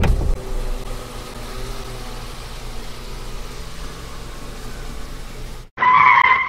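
A car engine running steadily, a low hum under a hiss, that stops abruptly near the end. A short, loud, high-pitched steady beep follows.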